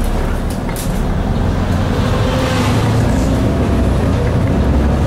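Supertram tram running, heard from inside the passenger car: a loud, steady low rumble with a faint whine that rises slightly in pitch in the second half.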